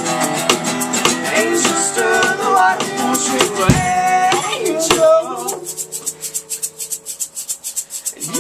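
A live band playing an instrumental passage of a song, with a shaker ticking out a quick steady rhythm. About five and a half seconds in, the band drops back to the shaker and one held note, then comes back in at the end.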